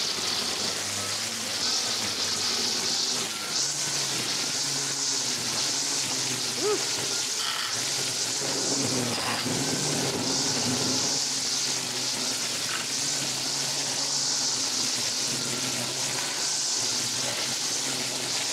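Stihl FSA 135 R battery-powered trimmer running steadily as it cuts through tall weeds: a continuous high hiss over a steady low electric hum.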